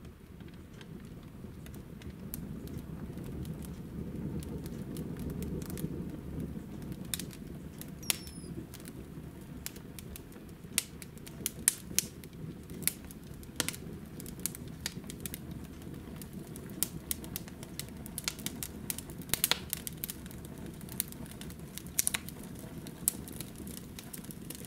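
Freshly lit wood fire in the open firebox of a stone oven, crackling and popping with sharp snaps over a low, steady rumble of flames. The pops come more often after the first several seconds.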